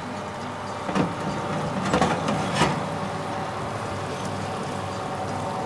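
Oven being opened and a baking dish taken out from under the grill: a few knocks and clatters of metal about one, two and two and a half seconds in, over a steady hum.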